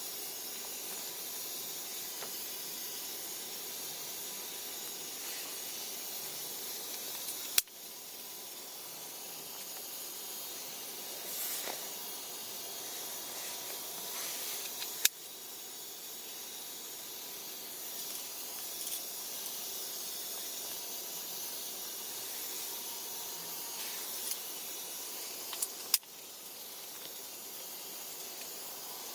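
Steady high hiss, with a few sharp clicks several seconds apart.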